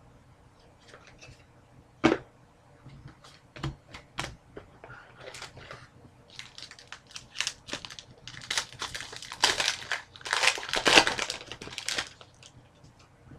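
Foil trading-card pack wrapper being handled and torn open, crinkling in a dense run about two-thirds of the way through, after a few sharp clicks and taps, the sharpest about two seconds in.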